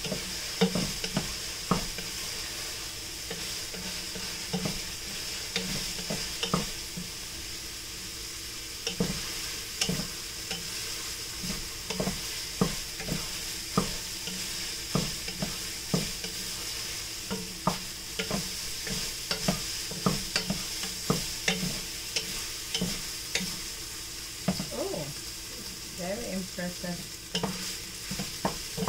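Ground meat sizzling as it browns in a pot, with a steady hiss under it. A wooden spoon scrapes and knocks against the pot as it is stirred, irregular strokes about once or twice a second.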